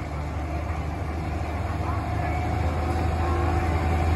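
Ford farm tractor's diesel engine running steadily, slowly getting louder.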